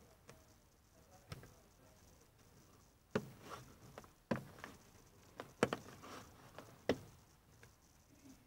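Plastic lens of a Dacia Duster's overhead dome light being pried off by hand: a series of sharp plastic clicks and snaps, about five louder ones with small ticks between them, as its clips let go.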